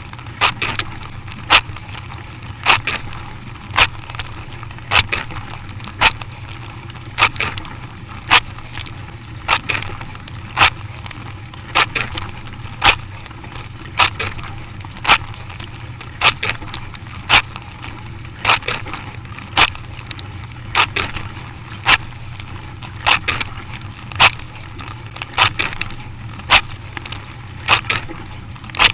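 A machine running with a steady low hum and a sharp clack about once a second, sometimes doubled.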